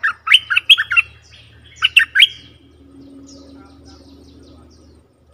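Bulbul calls: a quick run of about five sharp, clipped notes, then two more about two seconds in. These are lure calls meant to draw in wild bulbuls.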